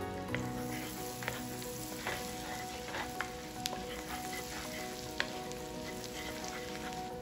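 Minced garlic sizzling in foaming melted butter in a frying pan, with scattered pops. From about halfway, a wooden spatula stirs it. Background music runs underneath.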